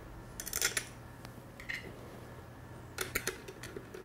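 A small hex screw and a hex screwdriver clicking and clinking against the metal camera top plate as the screw is fitted, in a few brief spells of light clicks.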